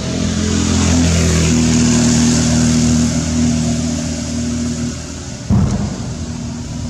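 A motor vehicle's engine running close by, its hum swelling over the first few seconds and then easing off, with a sudden thump about five and a half seconds in.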